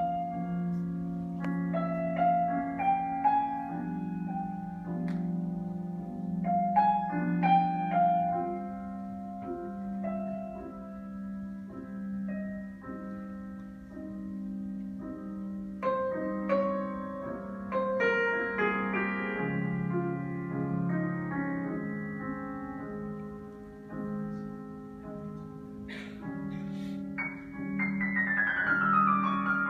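Live ensemble music: a keyboard plays slow melodic notes over held low chords, then a quick run of falling notes near the end.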